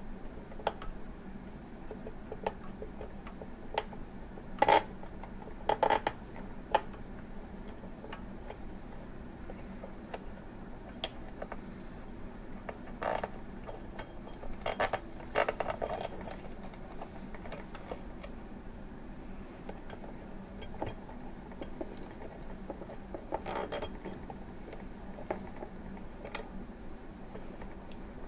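Hands handling the parts of a plasma tube kit: scattered clicks, taps and short rattles of a glass tube, plastic clips and wires against a clear acrylic frame, with a few louder clusters. A faint steady low hum sits underneath.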